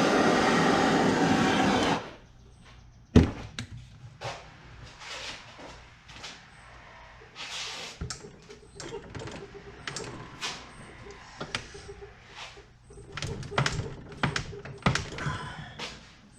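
A loud steady rushing roar cuts off suddenly about two seconds in. Then come scattered knocks, clanks and clicks of someone working on the scooter's muffler pipe to bend it back down, with one sharp knock soon after the roar stops.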